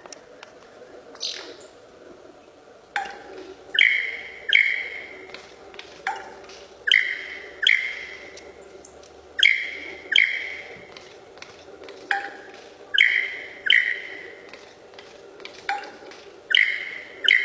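Lyrebird calling: loud, ringing notes that start sharply and fall away, in groups of two or three repeating about every three seconds.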